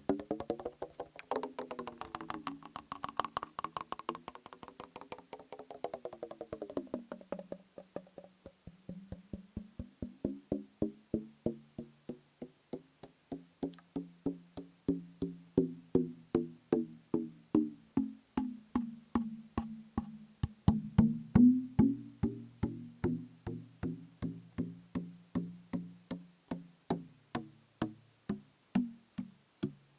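Fingertips tapping a plastic bottle partly filled with liquid, each tap giving a hollow, pitched knock. The taps come quickly at first, with the pitch wavering up and down as the liquid moves, then settle to a steady rhythm of about two taps a second with a lower tone.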